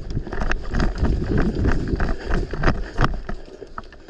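Rumbling movement and handling noise on a body-worn microphone, with a dozen or so irregular sharp clicks and snaps scattered through it.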